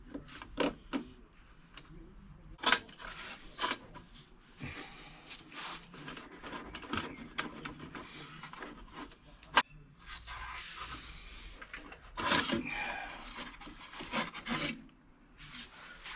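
Hand-tool work on a motorcycle exhaust mounting: scraping and rubbing of metal parts, broken by several sharp knocks and clicks as the bolt is backed off and the bracket pushed aside.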